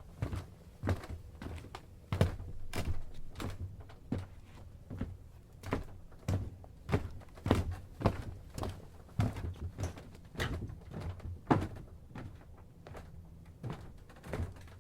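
Footsteps in tennis shoes on a wooden boat dock, a run of light wooden clunks and creaks with the pace changing and somewhat uneven.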